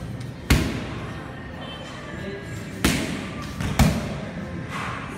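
Gloved punches and a kick landing on a trainer's pads: three sharp smacks, about half a second in, near three seconds and just before four seconds, over background music.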